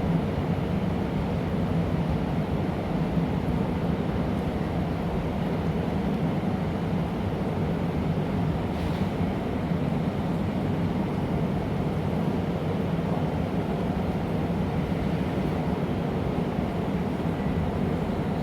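Steady low roar of a glassblowing workshop's gas-fired furnaces and ventilation, running unchanged throughout.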